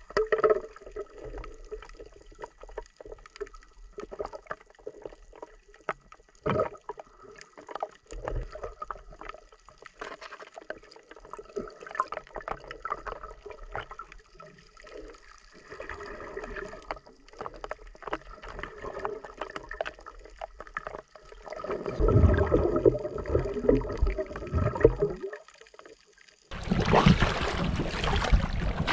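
Muffled underwater sound through a camera housing: faint clicks, gurgles and bubbling water. Near the end a louder low rumbling of moving water, then sudden loud splashing and sloshing as the camera comes up to the surface.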